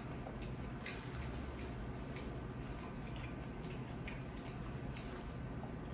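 Close-miked chewing of a Subway sandwich: soft wet mouth clicks and squishes at an uneven pace, a few each second, over a steady low hum.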